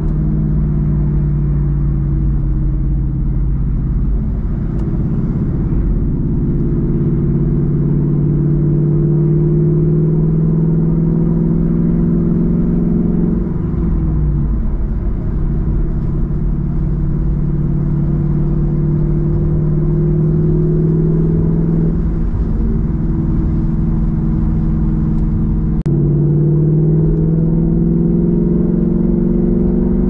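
Ford Mustang GT's V8 engine and exhaust under way at cruising speed, a steady deep drone over tyre and road rumble. The engine note drops in pitch about halfway through and steps back up near the end, as the revs change with speed and gear.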